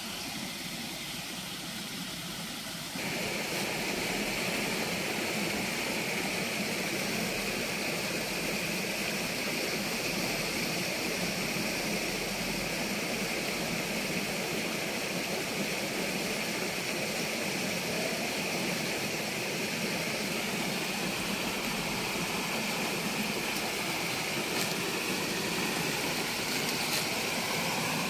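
River water rushing steadily over a small weir and rapids, a constant white-water roar that grows louder about three seconds in.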